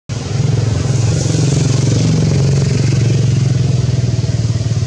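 A motor engine running steadily nearby: a loud, low, even drone with a fast pulsing to it.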